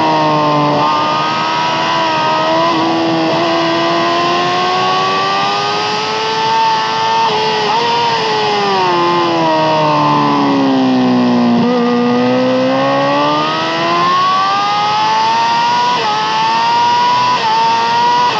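Yamaha R6's 600 cc inline-four with an Akrapovic exhaust at high revs. The pitch sinks in small steps through the middle as the revs drop and gears are changed down, then climbs again with short breaks at upshifts.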